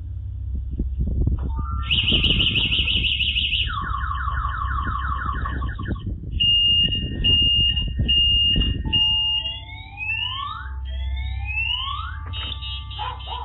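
Electronic car alarm siren cycling through its tones: a fast high warble, a lower warble, four even beeps, two rising whoops, then a rapid pulsing chirp, over a low rumble.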